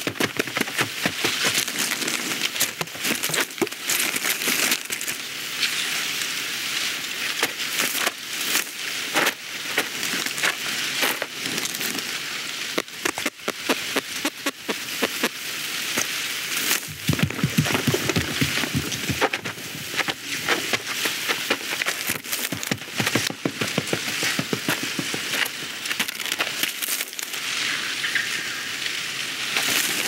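Animated-film sound effects with the dialogue removed: dense, continuous crackling and rustling of small clicks, with heavier, lower crunching about 17 to 19 seconds in.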